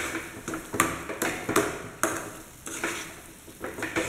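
A metal spoon stirring thick moong dal halwa in a metal kadai, scraping and knocking against the pan about every half second, over the soft sizzle of the mixture cooking in ghee. The strokes ease off for about a second past the middle, then start again.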